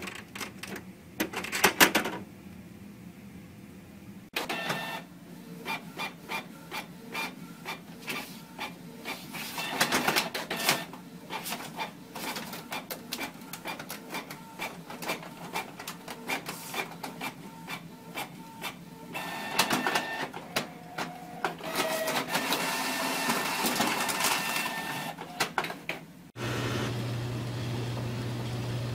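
Home inkjet printers at work: the paper feed and print-head carriage whirring and clicking in quick mechanical runs. The sound changes abruptly about four seconds in and again near the end as one printer gives way to another, the last with a low steady hum.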